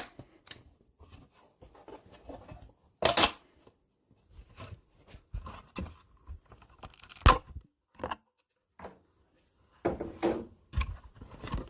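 A PETG 3D print being peeled off a glue-coated printer build plate: irregular crackling and tearing with a few sharp snaps, the loudest about three seconds in, about seven seconds in and around ten seconds in.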